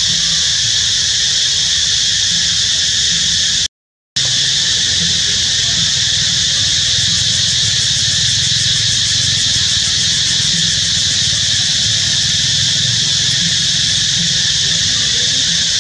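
Steady, loud, high-pitched insect chorus drone, typical of cicadas, with a low hum beneath. It cuts out for a moment about four seconds in.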